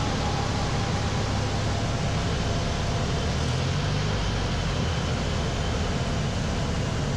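Pitts S-1S biplane's piston engine running steadily at reduced power on final approach, mixed with a constant rush of air, heard from inside the cockpit.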